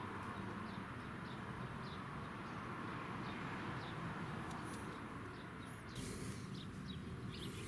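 Outdoor background noise with a small bird chirping repeatedly, about twice a second.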